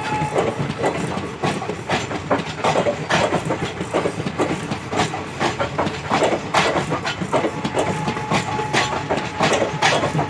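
Passenger train of ICF coaches rolling past, with a dense, uneven clatter of wheels over rail joints. A steady whine is heard at the start and again about eight seconds in.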